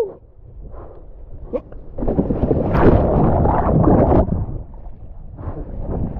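Sea water churning and bubbling around an action camera plunged under the surface during a kitesurfing ride. The sound is loudest from about two to four seconds in, and wind buffets the microphone again near the end as it comes back up.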